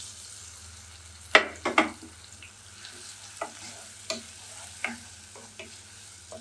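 Washed red and yellow lentils sizzling faintly in hot oil while a wooden spatula stirs them, scraping and tapping against the pot. Two sharp knocks a little over a second in are the loudest sounds, followed by lighter taps every second or so.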